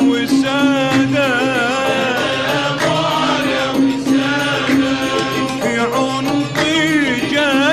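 Arabic song: a singer's ornamented, wavering vocal line over a steady low drone.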